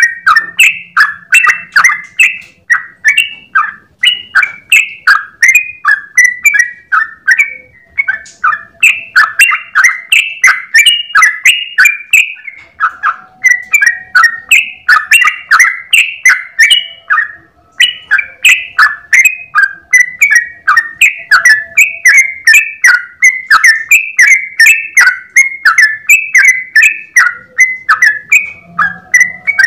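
Yellow-vented bulbul (trucukan) singing a long, continuous run of short, bubbly notes, about three a second, broken only by a few brief pauses.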